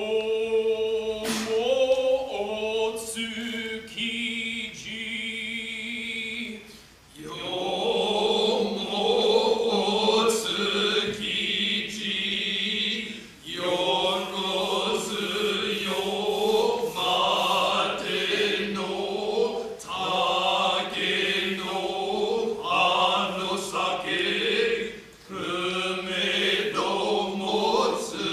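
Noh chorus (jiutai) chanting utai in low male voices, holding long wavering notes with no instruments. The chant grows fuller about seven seconds in and breaks briefly for breath twice later on.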